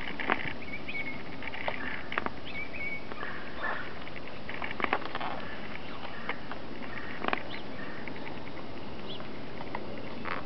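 A toy fox terrier digging and nosing in snow: scattered soft crunches and scuffs over a steady hiss, with a few short high squeaks in the first few seconds.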